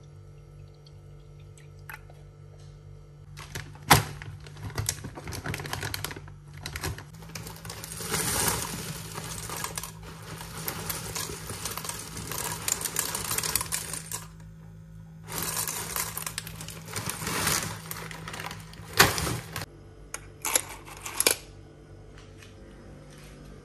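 Dry chocolate cereal poured from a plastic bag into a glass jar, a dense pattering rustle in two runs of several seconds each. A sharp knock comes about four seconds in, and a loud click and a few light clinks of a metal spoon against the glass come near the end.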